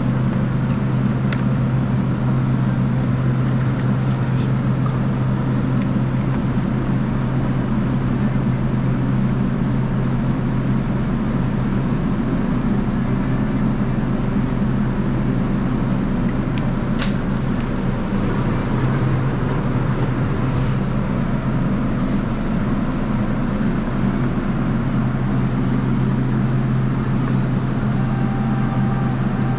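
Steady low hum of walk-in cooler refrigeration equipment, with a few light clicks and taps of eggs and pulp egg cartons being handled; the sharpest click comes about seventeen seconds in.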